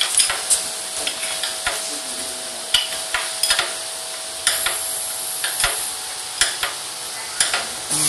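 Irregular light metallic clicks and clinks of a hand socket tool on the motorcycle's rear shock mounting bolts, over a steady hiss. A faint steady hum runs through the first half.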